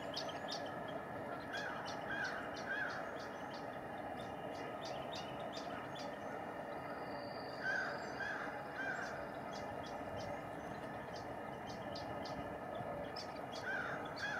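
Brown-headed nuthatch calling: short squeaky notes in sets of three, repeating about every six seconds. Many short high ticks come between them, over a steady background hiss.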